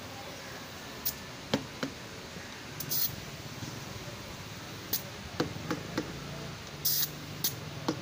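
Steel tyre levers knocking and clicking against a cast alloy wheel rim, with the tyre bead scraping, as a tyre is levered off the rim: a scattering of about a dozen sharp, irregular knocks and short scrapes.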